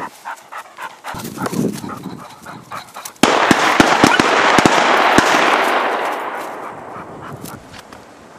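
A dog gives short high cries for the first few seconds. Then a sudden loud rush of wind noise on the microphone comes in and fades away, with several distant shotgun shots cracking in it as gunners fire at flighted pheasants.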